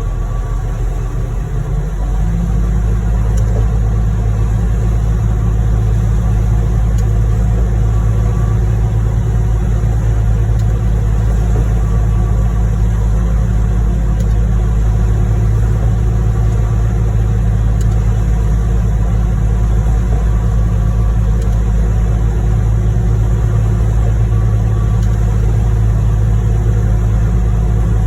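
Concrete pump truck's diesel engine running steadily under load while pumping concrete, stepping up to a louder, higher-revving level about two seconds in.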